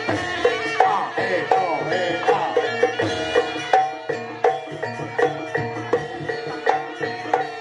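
Live Jaranan Buto gamelan ensemble playing: sharp kendang drum strokes keep a steady beat over ringing gong-chime notes, with a melody that slides in pitch during the first few seconds.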